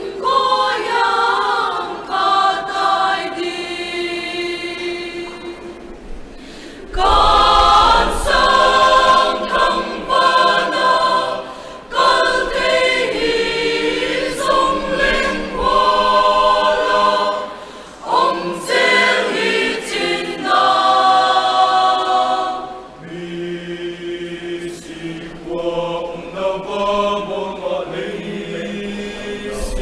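Mixed choir of men's and women's voices singing a sacred song in several-part harmony, in phrases with short breathing breaks, swelling louder from about seven seconds in.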